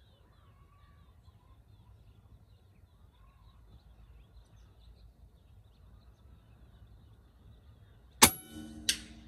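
A .25 calibre AirForce Condor PCP air rifle fires once, about eight seconds in: a sharp crack with a brief metallic ring. A second, softer crack follows under a second later. Faint bird chirps come before the shot.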